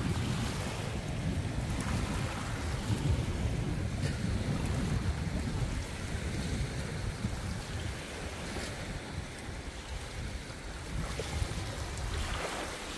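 Wind buffeting the microphone outdoors, a steady low rumble that eases a little after about six seconds.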